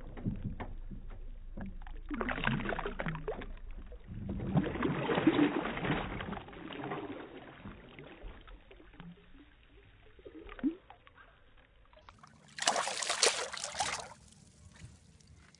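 Hooked bass thrashing and splashing at the water's surface beside the boat, in several bursts of splashing, the loudest about four to six seconds in, with another strong burst near the end.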